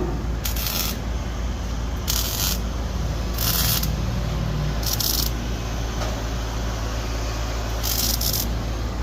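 Short bursts of arc welding on sheet-metal ductwork, about five spaced irregularly, each a crackling hiss of roughly half a second, over a steady machine hum.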